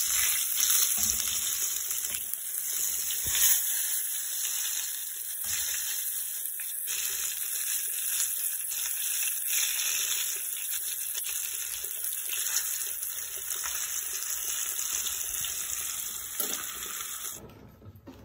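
Hot oil sizzling steadily as breaded fish pieces fry in a nonstick pan, with a few sharp clicks of metal tongs turning them. The sizzling cuts off suddenly near the end.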